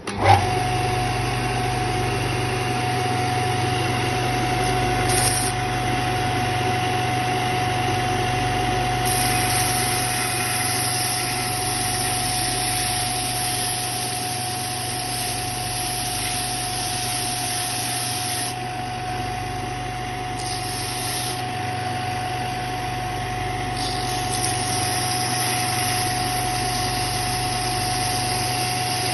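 Allwin belt and disc sander with a 550 W direct-drive motor running steadily with a constant hum, while a wooden workpiece is sanded against the abrasive. The high sanding hiss grows and fades several times as the pressure and contact change.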